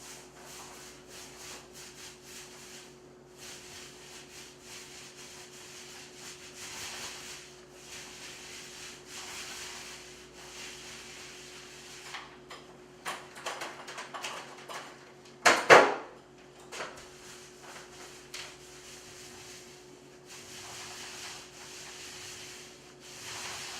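Paint roller spreading contact cement across a sheetrock wall: a soft rubbing swish that swells and fades with each stroke. A brief, much louder scraping noise comes a little past the middle, and a faint steady hum runs underneath.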